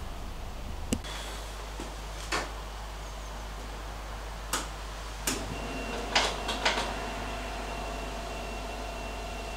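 Getting into a parked MGB: about six separate clicks and knocks, the car door opening and shutting, with the loudest pair a little past halfway, over a steady low hum. A faint steady high tone comes in about halfway through.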